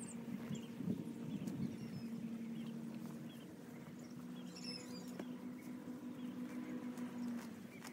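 A long-handled digging tool knocking into soil around lemongrass clumps, a few dull thuds mostly in the first couple of seconds. Birds chirp briefly over a steady low hum.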